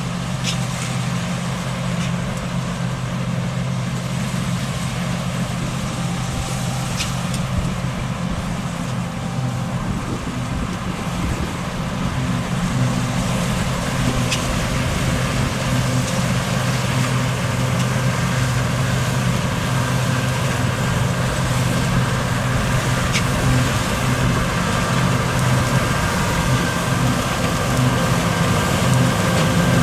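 Fendt 6275 L combine harvester running steadily in the field: a low engine hum that grows a little louder past the middle, as a higher machinery whine joins it.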